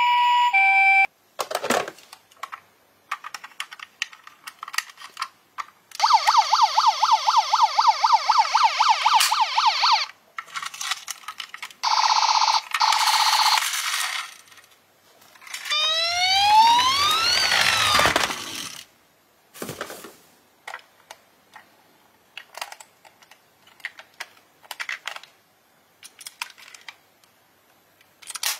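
Toy emergency vehicles sounding electronic sirens in separate bursts: a fast repeating yelp for about four seconds, then a short two-tone hi-lo, then one rising and falling wail. Between the bursts come small clicks and clatter of plastic toy cars being handled in a cardboard box.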